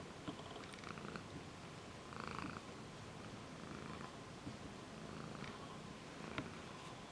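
Long-haired calico cat purring steadily while being stroked, with a few soft clicks along the way.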